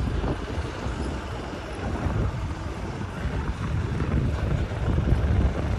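Uneven low rumble of wind buffeting the microphone, with a fainter hiss above it.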